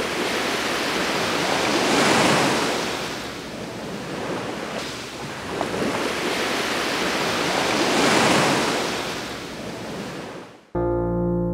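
Sea surf washing up a sandy beach, swelling and ebbing with two waves about six seconds apart. Near the end the surf fades out and electric piano music begins.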